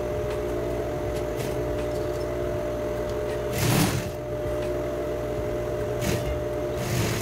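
Sewing machine running steadily, stitching a fabric hem, with a brief noisier scuff about halfway through and another near the end.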